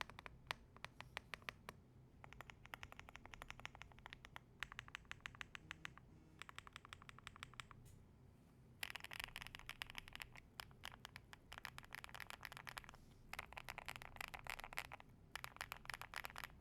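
Typing on a Zuoya GMK67 mechanical keyboard with Sillyworks Hyacinth V2U switches, PBT keycaps and a tape-modded PCB: fast runs of keystrokes separated by short pauses, louder from about halfway through.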